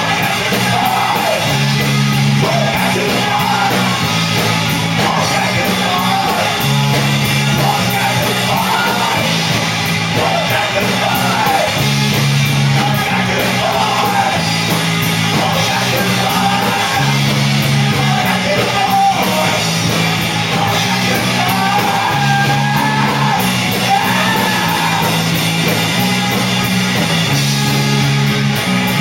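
Rock band playing live, a voice singing over a repeating bass line and drums with cymbals.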